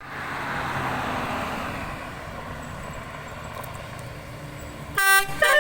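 Road noise with a passing vehicle's hiss and rumble fading away, then about five seconds in a bus's nine-trumpet basuri telolet horn starts blasting loud musical tones.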